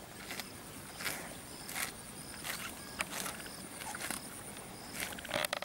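Outdoor rural ambience: a faint steady high-pitched tone runs throughout, with short hissy noises recurring about every half second to second and clustering near the end.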